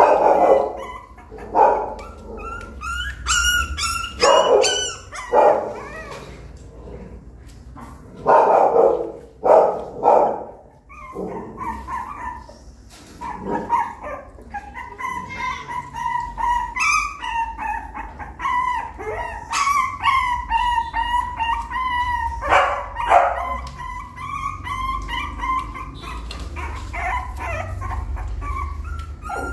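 A young puppy crying: sharp, loud yelps in the first half, then long, wavering high-pitched whines. It is crying because it is stuck outside the nest box, away from its littermates, and cannot climb back in.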